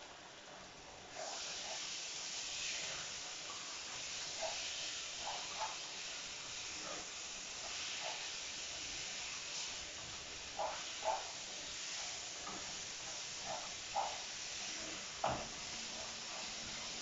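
Tomatoes sizzling in a frying pan, the sizzle starting about a second in and holding steady, with light clinks of a spatula stirring against the pan.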